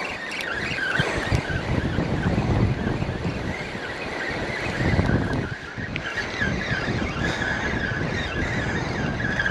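Spinning reel being cranked to bring in a hooked fish, a steady gear whine that gets stronger about six seconds in, over gusty wind on the microphone.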